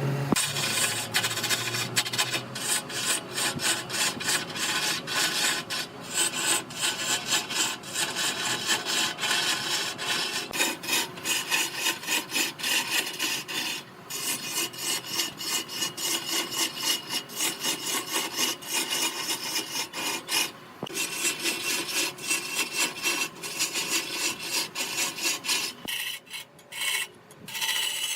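Wood spinning on a lathe being worked with a hand tool: a continuous rapid rasping scrape, breaking off into short gaps near the end as the tool comes off the wood.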